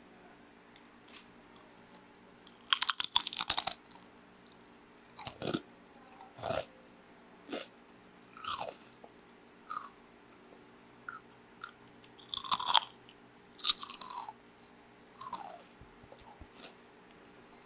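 Close-miked crunching of an Oishi Ridges barbecue potato chip being bitten and chewed, in separate bursts of crackle every second or two. The loudest is a dense run of crunches about three seconds in, with more strong crunches around twelve to fourteen seconds.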